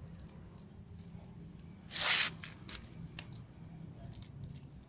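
Cat crunching dry kibble from a plastic tub: small crisp clicks scattered throughout. About two seconds in there is one short, loud burst of hiss-like noise.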